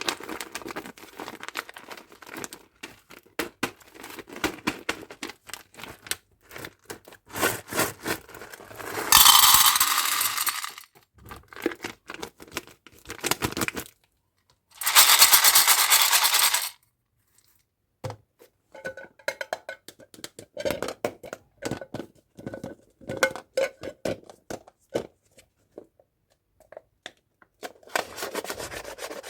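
Hands handling plastic candy and toy packaging: many small clicks and taps, with two louder rustling bursts of a second or two each, about nine and fifteen seconds in.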